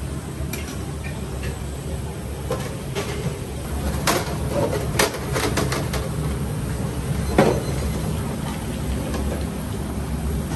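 Ramen-shop kitchen sounds: a steady low hum of kitchen equipment with scattered clinks and knocks of utensils and dishes, the sharpest about seven seconds in.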